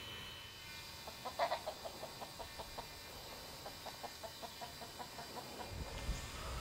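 Rooster clucking in two quick runs of short clucks, about five a second. The first run starts about a second in and is loudest at its start; the second follows after a short pause.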